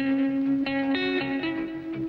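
Background music: a melody of held notes that changes pitch about every half second.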